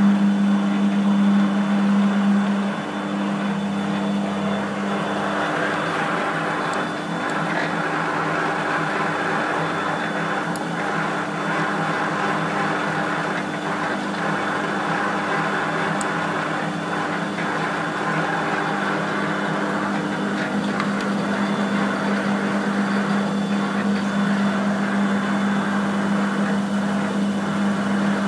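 Large German-built heavy lathe running under power: a steady machine hum from its drive and gearbox with a rougher gear whir over it. The hum fades about three seconds in and comes back strongly near the end.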